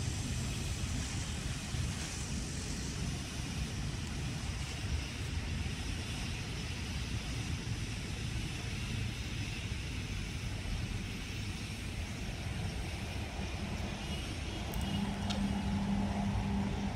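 Green smoke stick burning with a steady hiss, over the low rumble of wind on the microphone and traffic. A steady low engine hum comes in near the end.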